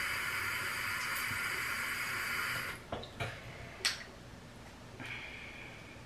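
Bathroom sink tap running in a steady hiss, turned off about three seconds in. A few small clicks and knocks follow, then a shorter, fainter hiss near the end.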